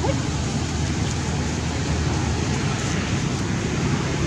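Steady low rumble with an even hiss above it: outdoor background noise, with no clear calls or knocks standing out.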